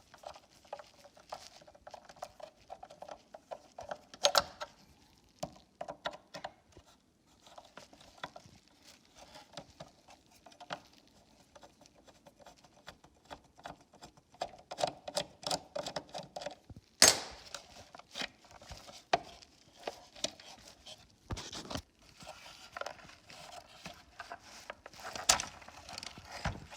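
A screwdriver working tiny T10 Torx screws out of a car door mirror's plastic housing: scattered small clicks, scraping and plastic handling noise, with a few sharper knocks.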